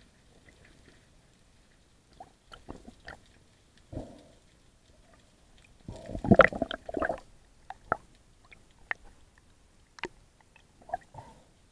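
Underwater sound picked up through a camera's waterproof housing: scattered sharp clicks and knocks, with a louder jumble of rushing noise and knocks about six seconds in.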